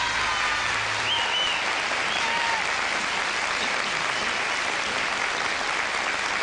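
Studio audience applauding at the end of a song: a steady, sustained wash of clapping.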